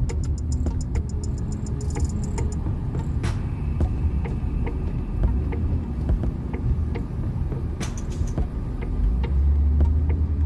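Steady low rumble of a car driving, heard from inside the cabin, with scattered faint clicks.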